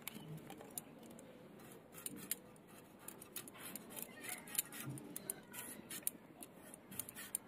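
Potatoes being peeled against a boti, a curved blade fixed upright on a wooden base: faint, irregular scraping and small clicks as the skin is shaved off.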